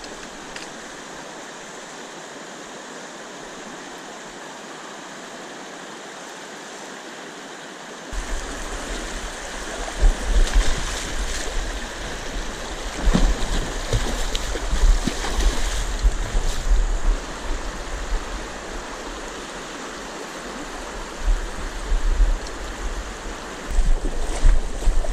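Fast river water rushing over a shallow, rocky riffle, a steady hiss of current. From about eight seconds in it turns louder and more uneven, with a low rumbling on the microphone and scattered sharp knocks or splashes.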